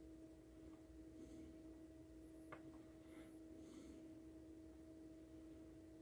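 Near silence: room tone with a faint steady hum and one faint tick about two and a half seconds in.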